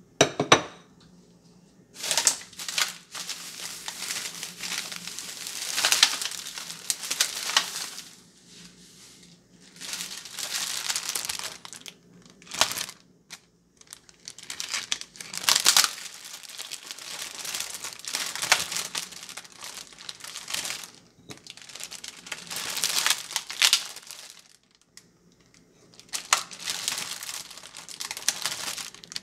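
Crinkling of a clear plastic clamshell food package, in repeated bursts with short pauses, as it is handled, opened and dessert shells are taken out. A short knock near the start as a plate is put down on the counter.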